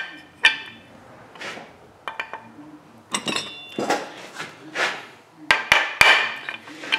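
Hammer blows on a punch driving the old crankshaft seal out of a Stihl 041 chainsaw crankcase half: about a dozen irregular sharp metallic strikes, some with a short ring, coming closer together near the end.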